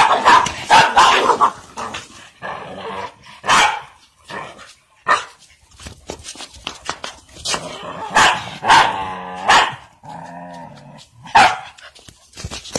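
Dog barking in repeated sharp bursts and growling while it fights a rooster.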